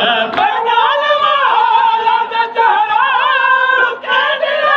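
A group of men singing a Muharram noha together without instruments, holding long, wavering notes.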